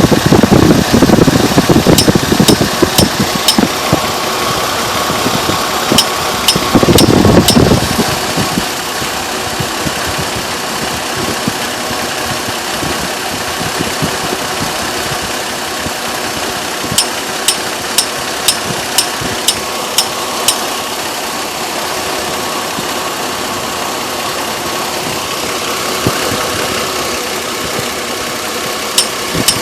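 2002 Chevrolet Trailblazer's 4.2-litre inline-six running, with sharp ticks coming in runs of several at about two a second over the engine's steady noise, and a heavier low rumble twice in the first eight seconds. The ticking has persisted after a new fan clutch, and the owner suspects a failing water pump.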